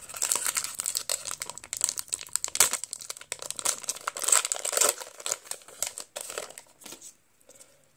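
Foil wrapper of a Pokémon TCG booster pack crinkling as it is torn open by hand and the cards are pulled out. The dense crackling thins out about six and a half seconds in.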